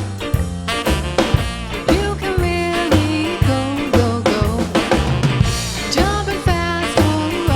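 Upbeat background music with a steady drum beat and a melody line over it.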